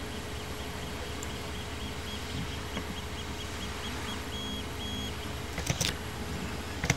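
Steady background hum and hiss of a room, with faint high-pitched beeps going on and off in an irregular pattern of short and long tones. A few sharp clicks come near the end.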